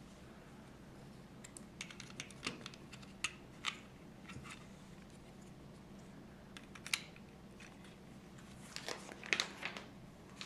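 Plastic Lego bricks clicking and snapping together as pieces are handled and pressed onto a small model car, in scattered small clusters of clicks with the loudest run near the end.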